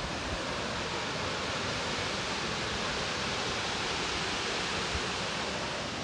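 Steady rushing of Bahuti waterfall's falling water, an even unbroken noise.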